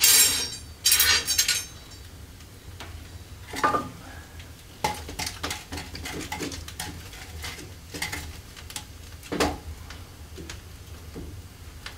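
Iron cooking racks and grates clanking loudly as they are pushed aside in an open fireplace, in the first second and a half. Then the wood fire crackles, with a few scattered knocks as the burning wood and embers are stirred up.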